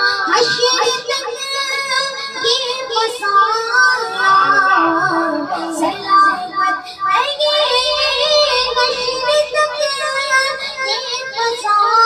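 A boy singing a naat solo into a handheld microphone, the melody gliding and ornamented.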